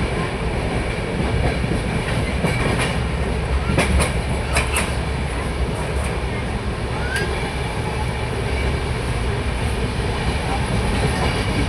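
Train running along the track with a steady heavy rumble. A quick run of sharp clicks from the wheels comes about four to five seconds in, and a brief rising squeal follows a couple of seconds later.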